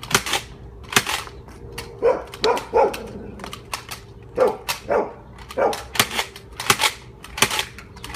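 Spring-powered Nerf dart blasters firing: about a dozen sharp snaps at irregular intervals, with several short yelp-like calls in between, a few seconds in.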